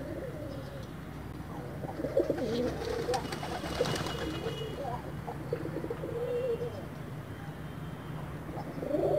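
Domestic pigeons cooing repeatedly. A flurry of sharp wing claps comes about three to four seconds in as one pigeon takes off.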